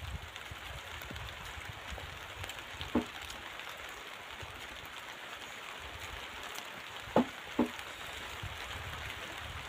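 Steady, even hiss of outdoor background noise, with three short mouth sounds from people eating by hand: one about three seconds in and two close together near the end.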